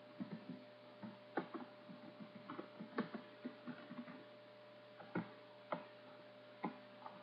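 Computer keyboard keys and mouse buttons clicking at an irregular pace, a dozen or so faint taps, over a steady faint electrical hum.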